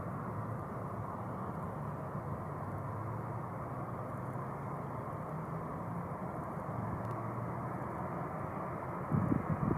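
Steady distant jet engine noise of a Boeing 747-400, a continuous low hum under a hiss. A few louder low rumbles come in near the end.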